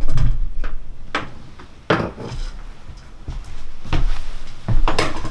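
A person climbing out of a crawl-space access hole, knocking and bumping against the floor and opening: about five separate knocks, spread over the few seconds.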